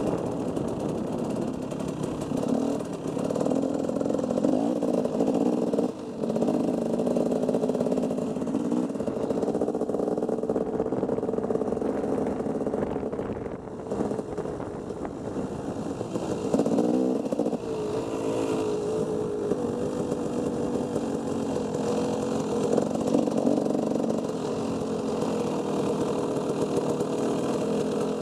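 Two-stroke dirt bike engine running as it is ridden at low speed, the revs rising and falling with the throttle. About halfway through it drops off briefly, then picks up again.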